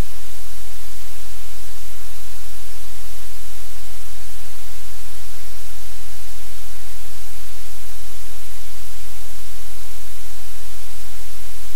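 Loud, steady static hiss with a low hum beneath it, unchanging, with a few faint ticks.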